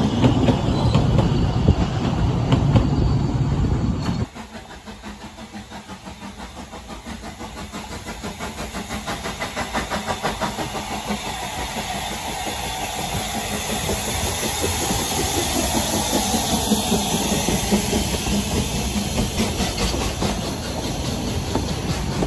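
Narrow-gauge railway carriages rumbling past, then, after a cut, the replica Manning Wardle 2-6-2T steam locomotive 'Lyd' (No. 190) approaching. Its regular exhaust beats grow louder until its train of carriages rolls past with a steady rumble and clickety-clack of wheels on the rail joints.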